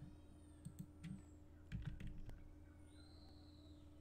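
A few faint computer keyboard keystrokes, scattered and irregular, over a low steady electrical hum.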